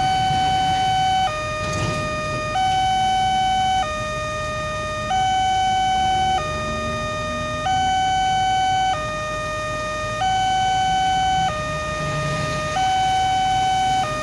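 Railway level-crossing warning alarm sounding an electronic two-tone signal, alternating between a higher and a lower note about every 1.3 seconds, while the crossing's lights flash and the barrier is down for an approaching train. A low rumble of waiting traffic lies underneath.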